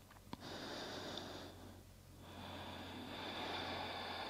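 A woman's audible yoga breathing while holding a seated stretch: a short breath of about a second, then a longer, drawn-out breath starting about two seconds in.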